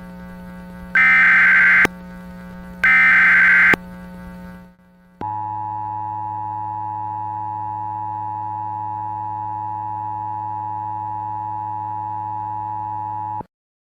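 Emergency Alert System alert tones. First come two bursts of buzzing SAME header data tone, about a second each, with a low hum between them. After a short gap comes the steady EAS attention signal, a held two-tone beep lasting about eight seconds before it cuts off.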